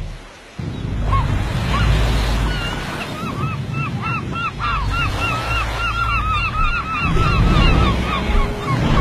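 Wind and sea noise on open water, with a rapid run of short, repeated calls, a few a second, starting about three seconds in.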